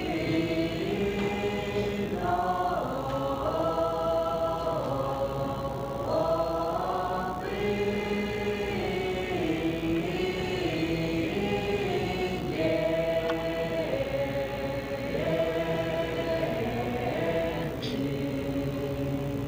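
Mixed Doukhobor choir of women's and men's voices singing unaccompanied in harmony, holding chords that shift every second or so.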